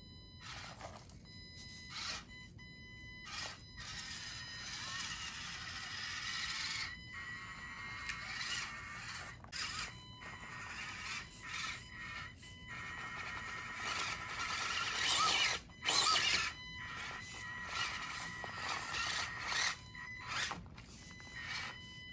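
A mini RC crawler driving in spurts: a small electric motor and gears whining, rising and falling with throttle, while its 3D-printed tires and chassis scrape over the terrain, with short pauses between bursts.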